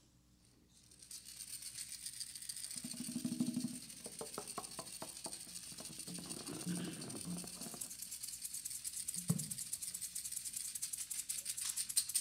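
A hand percussion rattle shaken softly, fading in about a second in and growing into a quick, even pulse near the end. Some low, indistinct sounds come a few seconds in, and there is a single knock at about nine seconds.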